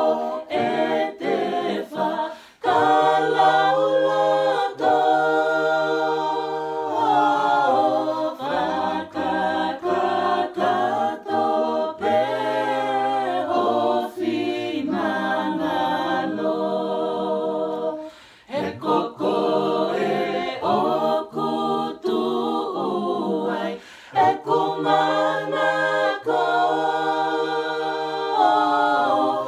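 A family group singing a Tongan gospel song a cappella in harmony, with a few brief breaks between phrases.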